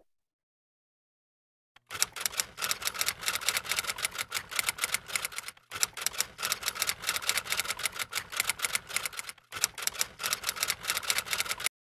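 Typing sound effect: rapid key clicks starting about two seconds in, pausing briefly twice, and stopping just before the end.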